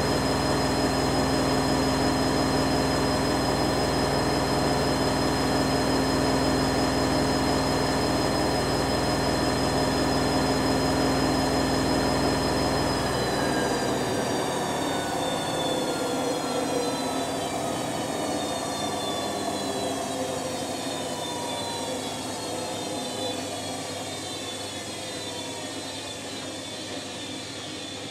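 Electrolux EWF9042R7WB front-loading washing machine spinning its drum at a steady high speed with a whine. About halfway through, the motor lets go and the drum winds down, its whine falling steadily in pitch as the sound fades.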